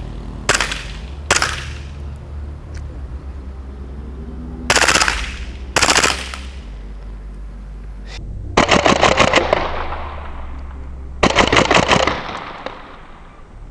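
Rossi Glock R18 gas-blowback airsoft pistol running on green gas, firing: two single shots, then short bursts, then two longer full-auto bursts of rapid pops with the slide cycling on each shot.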